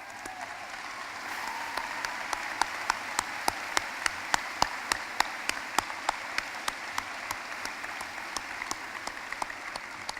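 A large crowd applauding, swelling over the first second or two and thinning toward the end, with one nearby pair of hands clapping loud and even, about three claps a second, over the top.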